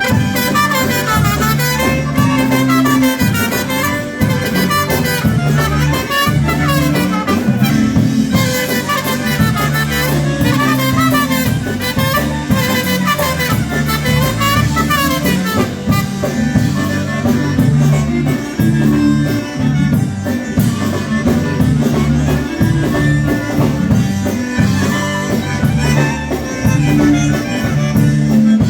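Live Slovenian-style polka band playing an instrumental passage, with melody instruments over a steady, bouncing bass line.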